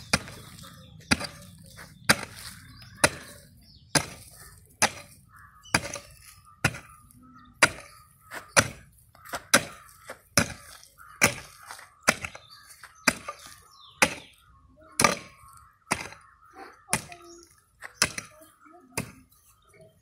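Pickaxe striking into soil, breaking up ground by hand for planting. About twenty blows come at a steady pace of roughly one a second.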